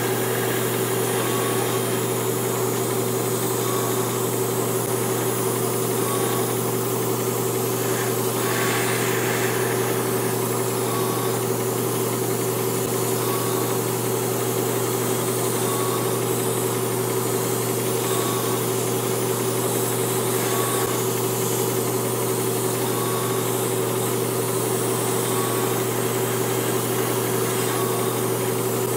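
Small airbrush compressor running with a steady hum, while a gravity-feed airbrush sprays white paint at about 25 psi with a hiss.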